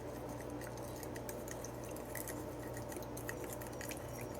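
Spoon stirring a runny oil, lemon juice and spice mixture in a bowl: faint scattered clicks and small wet sounds over a low steady hum.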